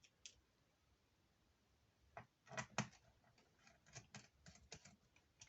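Scattered small clicks and taps from about two seconds in, the loudest two close together: a screwdriver and small screws working on a laptop's bottom cover as it is screwed back on.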